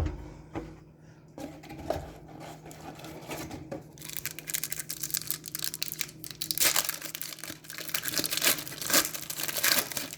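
A trading card pack wrapper being torn open and crinkled, with the cards inside handled. There are light handling clicks at first, and the crinkling gets loud and continuous from about four seconds in.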